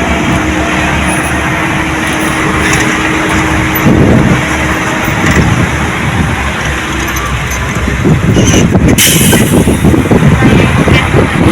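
Heavy diesel machinery engine running steadily, turning rougher and louder from about eight seconds in as it works, with a brief hiss of air about nine seconds in.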